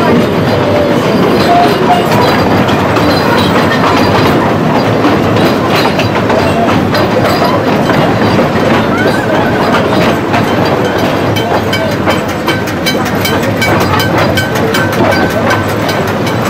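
Wooden passenger carriages of a 2 ft 6 in narrow-gauge steam train rolling slowly along the track, a steady rumble with the wheels clicking over rail joints and points, the clicks coming thicker in the second half.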